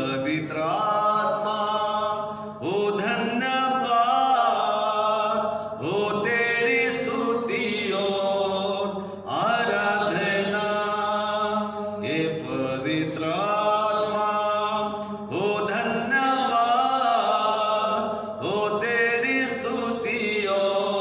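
A man singing a Hindi Christian hymn of thanks to God, solo and unaccompanied by other voices. He holds long, gliding notes in phrases of about three seconds, with short breaks for breath between them. A steady low drone runs underneath.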